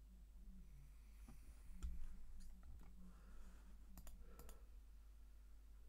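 Faint, scattered clicks at a computer, with a quick run of three clicks about four seconds in, over a steady low electrical hum.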